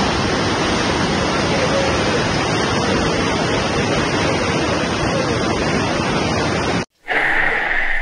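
Loud steady rush of water in a rain-collapsed road, where muddy water fills the cavity under the broken pavement. It cuts off suddenly about seven seconds in, and a different steady high hum follows.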